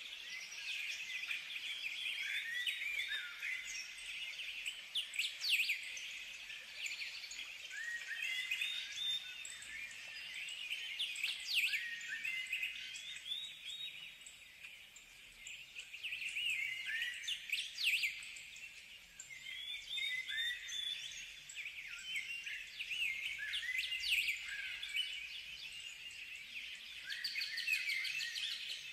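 Birds chirping and singing, many short overlapping calls that glide up and down in pitch, swelling and fading every few seconds.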